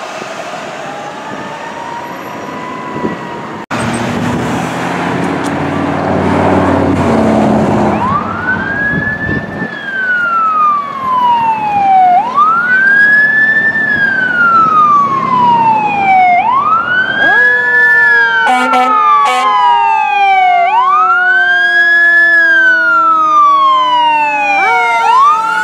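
Fire engine sirens. A siren fades away at the start, and after a break a fire truck passes with engine and road noise. Then an electronic siren wails in repeated sweeps, each a quick rise and a slow fall about every four seconds, with a second lower siren joining about two-thirds of the way in and a few short horn blasts.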